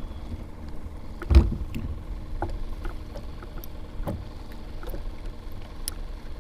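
Kayak drifting on choppy water: a steady low rumble of wind and water against the hull, with small clicks and knocks as a fishing rod and line are handled. There is one loud thump about one and a half seconds in.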